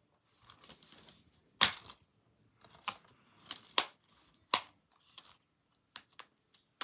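Plastic DVD case being handled while a security sticker is picked at and peeled off its edge: a scattered series of short, sharp clicks and crackles with faint rustling between them.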